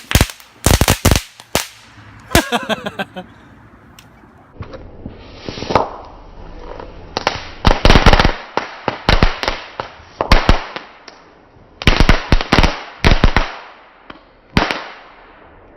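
Several crackle-bomb fireworks tied together going off: irregular clusters of sharp crackling pops, separated by short pauses of a second or two.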